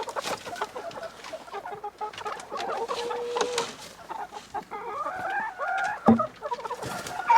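A flock of laying hens clucking and calling over one another in the coop, with one longer held call midway and a few rising calls later. A single sharp knock comes about six seconds in.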